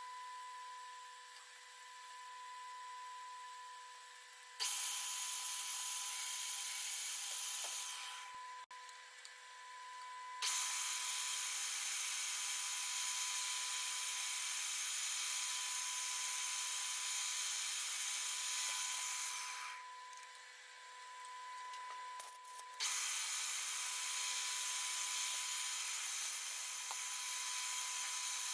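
Milling machine cutting an 8 mm keyway into a 35 mm steel shaft. Three stretches of steady cutting noise start and stop abruptly, the longest about nine seconds, over a steady machine whine.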